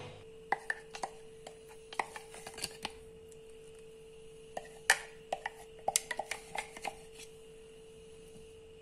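Wooden spoon scooping thick marinade from a glass bowl onto meat in a ceramic dish: a scatter of light taps and knocks, loudest about five and six seconds in, over a faint steady hum.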